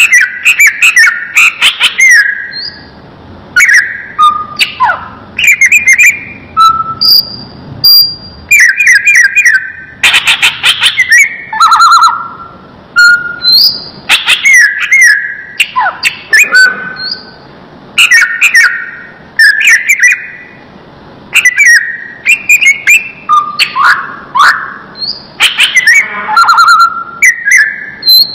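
Cucak ijo (green leafbird) singing a loud, varied song of whistled phrases, sweeping and chattering notes, one phrase after another with short pauses.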